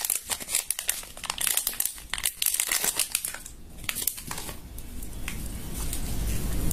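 Hands working butter slime and soft clay: a run of small crackling clicks, a short lull, then a denser, steadier rustling that grows louder toward the end.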